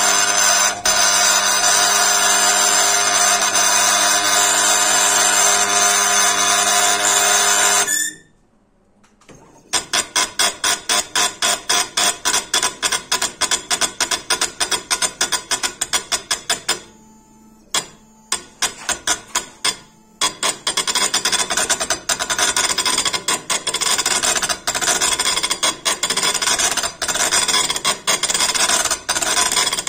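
Impact stone-engraving machine hammering granite with its engraving needle in rapid strikes. A steady running tone for the first eight seconds, then the sound stops for about a second and a half. After that come quick repeated strikes with two short breaks, which settle into dense continuous hammering.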